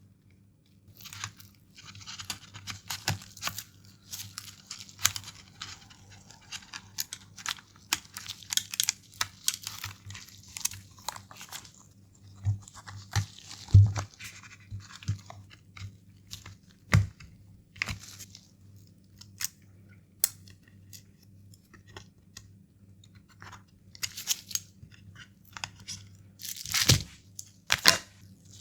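Hands working on the Nintendo DSi XL's small plastic parts and ribbon cables: scattered clicks and taps with stretches of rustling, a few louder knocks around the middle and near the end, over a steady low hum.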